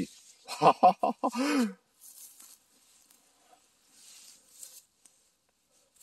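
A man's voice speaks briefly in the first two seconds. It is followed by faint, intermittent rustling and crackling of dry pine needles and fallen leaves on the forest floor as they are disturbed.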